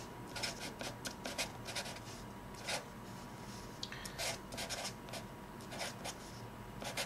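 Felt-tip marker writing on paper: many short, irregular strokes of the tip scratching across the sheet as letters are formed.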